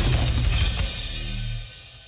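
Drum-kit music: the last hits of a beat give way to a low, held bass note that fades out about a second and a half in, leaving a short lull before the drums return.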